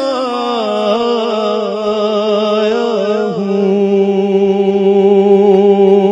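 A man singing a naat, an Urdu devotional song, in long, ornamented held notes with a wavering melismatic line.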